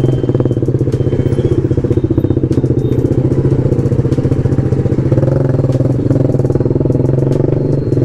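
BMW G310 RR's single-cylinder engine running at low revs in slow traffic, with a fast even pulsing beat; the revs rise slightly about five seconds in.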